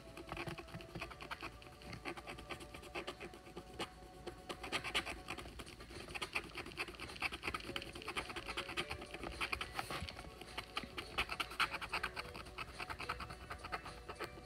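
Pointed wooden stick scratching the black coating off scratch-art paper in rapid short strokes, a dense run of fine scratchy ticks.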